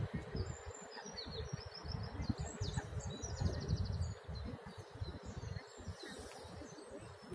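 Wind gusting against the microphone, with small birds chirping high above it and a short rapid trill about three seconds in.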